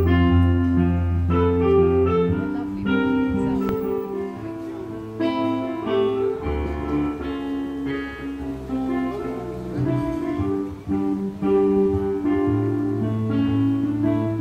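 Electronic keyboard played live, with a plucked, guitar-like tone: a low bass line under held chords and a melody of separate notes, with no singing. The bass drops out for a few seconds after about two seconds in, then returns.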